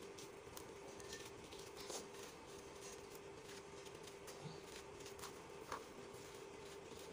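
Dry, gritty dirt clumps crumbled between fingers: faint, scattered crackles and grains pattering down, over a faint steady hum.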